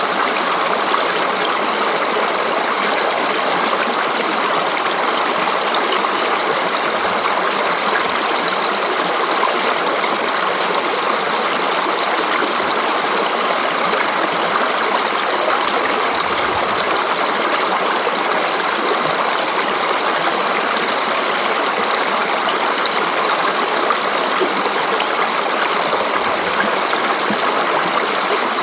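Fast, shallow stream rushing and splashing over rocks and boulders: a steady, even rush of water.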